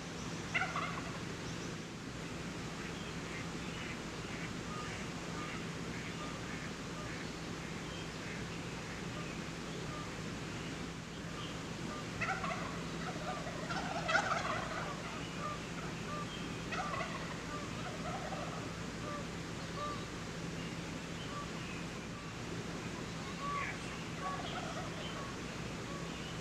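Wild turkey gobbling several times, the loudest about fourteen seconds in, amid many short repeated chirps and a steady low hum.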